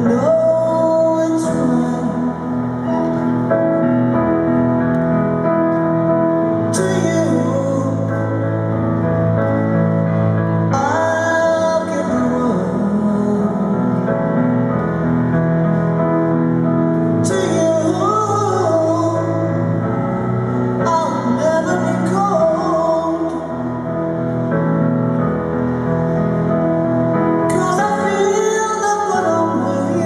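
A woman singing a slow ballad to grand piano accompaniment, amplified live through an arena sound system.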